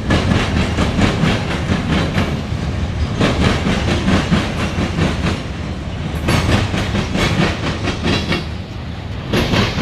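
Freight cars of a Norfolk Southern local train rolling past as the train backs up, their wheels clacking over rail joints in a quick run of clicks over a steady low rumble.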